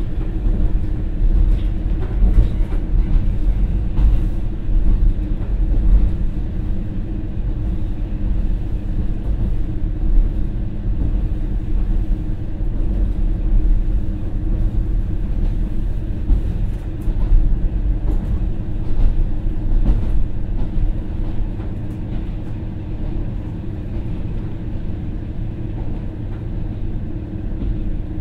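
KiHa 40 diesel railcar running under power, heard inside the cabin: its original non-direct-injection DMF15HSA six-cylinder diesel drones steadily, in torque-converter drive, over the rumble of the wheels. Occasional knocks from short-rail joints come through, and the sound eases a little in the last few seconds.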